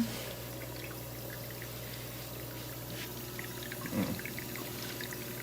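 Bosch 800 Series dishwasher running a rinse cycle: water pouring and splashing inside, over a steady low hum. A brief falling sound about four seconds in.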